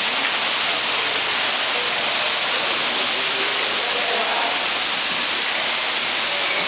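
Steady rushing hiss of running water, even and unbroken, with faint voices of people further off.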